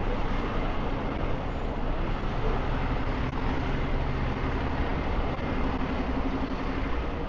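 City street traffic: a steady wash of vehicle engines and tyres, with a nearby engine's low hum coming up about two to three seconds in.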